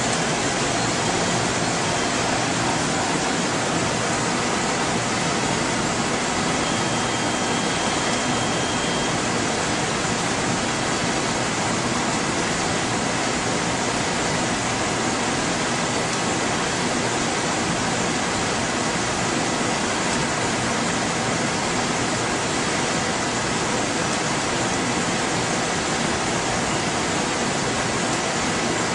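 Steady, loud rushing noise of lab ventilation and electronics cooling fans, with a few faint steady whining tones in it.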